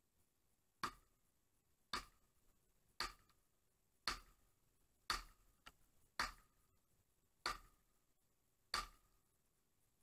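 Axe blows striking the base of a tree trunk: eight sharp knocks, about one a second, each with a short ring.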